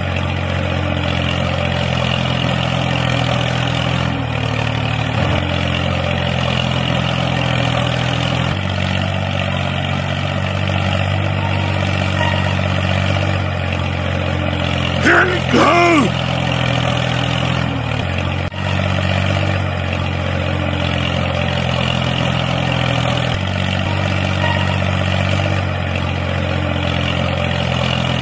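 Tractor engine running with a steady low drone, its pitch stepping up and down a few times, and a short voice-like call about halfway through.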